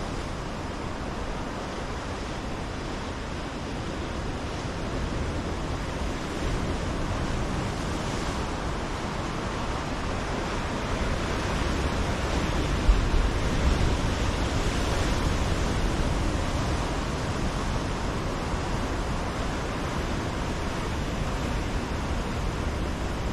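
Ocean surf breaking along a rocky shore: a steady rushing wash that swells a little past the middle, with one brief louder thump.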